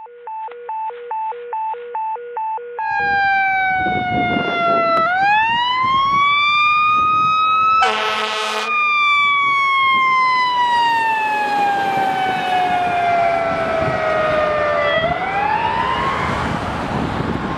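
Fire engine siren wailing, its pitch sweeping slowly down and up in long cycles, with a short air horn blast about eight seconds in. The vehicle is responding to an alarm call.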